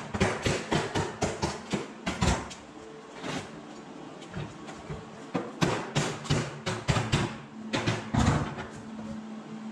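Hammer striking the sheet-metal shell of a Smart fortwo CDI muffler, quick runs of sharp blows with a lull of about three seconds near the middle.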